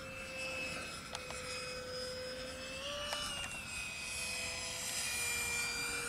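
Radio-controlled model F-22 jet flying overhead, its engine giving a steady high whine. The pitch steps up briefly about three seconds in, then settles slightly lower.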